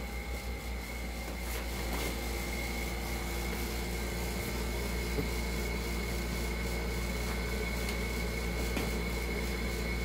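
Steady room hum and hiss with a thin, high, steady whine and a low hum under it, broken by a few faint clicks.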